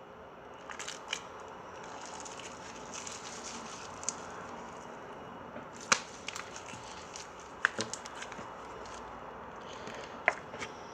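Sticky slime being worked by hand on a table, crackling, with a few sharp pops scattered through.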